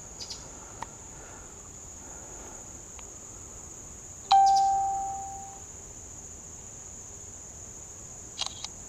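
A single bright electronic chime from a smartphone about four seconds in, dying away over a second or so, over a steady high-pitched drone of insects.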